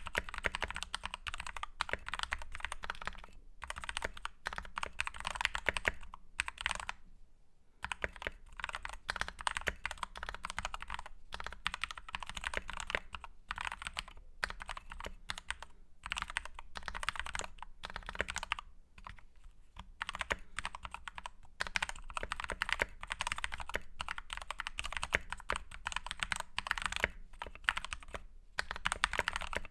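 Typing on a Novice68 mechanical keyboard with lubed Gateron Black linear switches: fast runs of keystrokes with short pauses now and then, with a break of about a second some seven seconds in.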